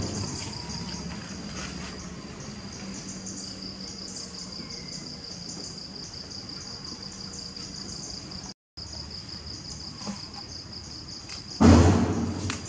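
Steady outdoor insect chorus, a fast-pulsing high chirr that cuts out for a moment about two-thirds in. Near the end, a loud low burst of noise fades away over about a second.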